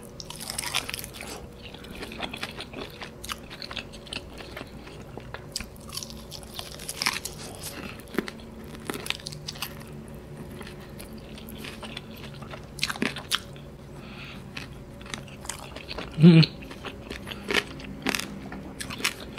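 Close-up biting into and chewing a piece of bone-in fried chicken karaage coated in buttermilk sauce, heard as many short, irregular mouth clicks.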